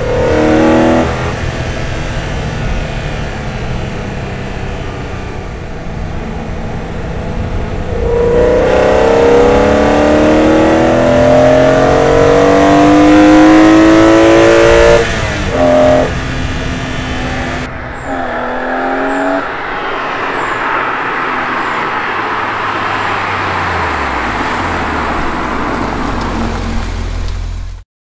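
BMW E46 M3's S54 straight-six breathing through an Eventuri carbon-fibre intake, heard from inside the cabin: the engine note climbs hard through a gear from about eight seconds in, breaks for quick gear changes, then settles to a steady cruise over road noise, its pitch dropping near the end.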